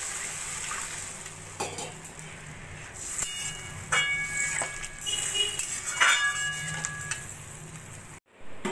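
Water that has just gone into the hot oil and spiced vegetables sizzles and fades away. A steel spatula scrapes and clinks against the metal wok several times as the vegetables are stirred into the broth, each clink ringing briefly.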